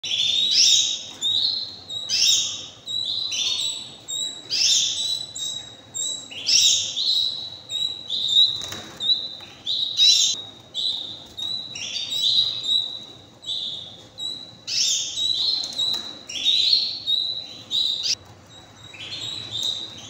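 Domestic canaries chirping in their cage: a steady run of short, high calls that fall quickly in pitch, about one or two a second, over a thin continuous high note.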